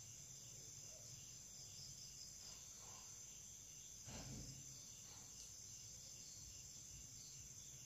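Near silence: a faint, steady high trill typical of night crickets over a low hum, with one soft handling knock about four seconds in.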